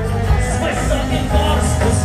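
Amplified music with a heavy bass line.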